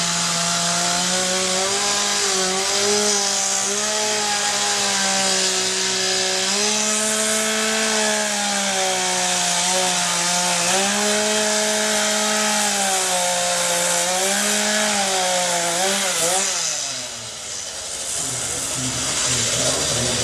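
Chainsaw running at high speed and cutting wood, its engine pitch stepping up and down as it bogs and frees in the cut. About sixteen seconds in the engine note falls away and the sound dips briefly before the noise picks up again.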